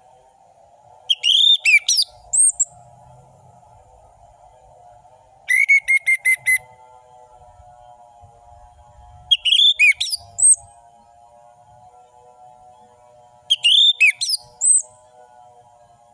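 Orange-headed thrush (anis merah) singing: four short, loud phrases about four seconds apart, each a quick run of sweeping whistled notes and rapid repeated notes. A faint steady low hum runs underneath.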